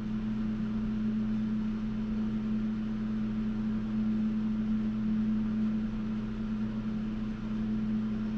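Steady low electrical hum of a machine running in the room: one unchanging drone with a buzzy tone.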